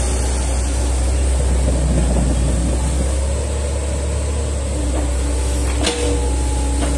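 Hitachi hydraulic excavator's diesel engine running steadily as the machine works, a constant deep hum, with a brief knock about six seconds in.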